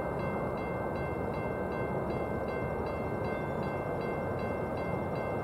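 Grade crossing bell ringing steadily, about two to three strikes a second, over the low rumble of an approaching diesel freight train.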